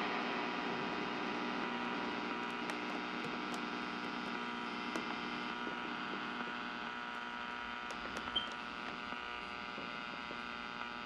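A steady electric hum made of many held tones, fading slowly, with a few faint clicks.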